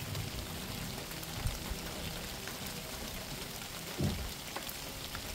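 Steady rain falling, an even patter of many small drops, with one brief low thump about four seconds in.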